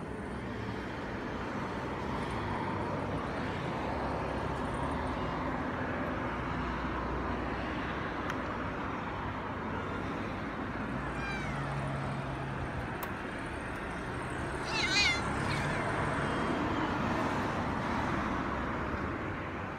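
Feral cats meowing over a steady background of urban traffic noise. A faint falling meow comes about halfway through, and a short, high, wavering meow, the loudest sound, about three-quarters of the way in.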